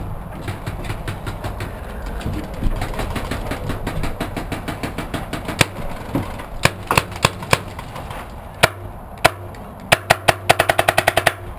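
Paintball markers firing: a dense patter of shots at first, then louder, closer shots from about halfway, ending in a quick string of about eight shots near the end.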